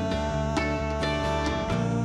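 Live band instrumental passage in a soft rock song: electric guitars and bass guitar playing over a djembe hand drum that keeps a steady beat of about two hits a second.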